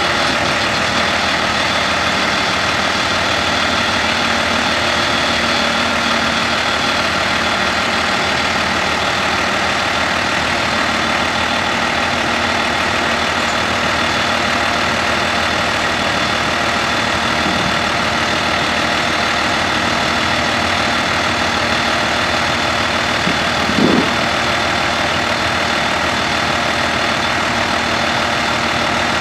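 New Holland TS115A tractor's six-cylinder turbo diesel engine idling steadily. A short thump is heard about three-quarters of the way through.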